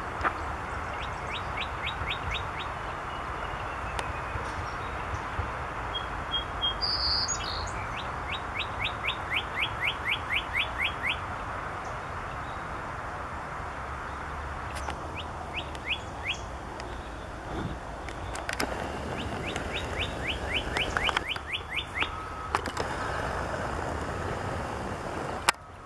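Male northern cardinal singing: four runs of quick, repeated down-slurred whistles, the longest about three seconds, over a steady background hiss.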